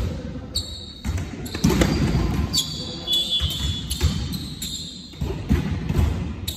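Indoor volleyball play on a wooden sports-hall court: the ball being struck, feet thudding and shoes squeaking on the floor, each knock echoing around the large hall.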